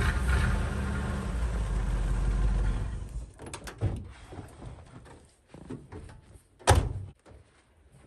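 Old Ford pickup's engine running as the truck rolls up, cutting off about three seconds in; a few light knocks follow, then a truck door slams shut near the end.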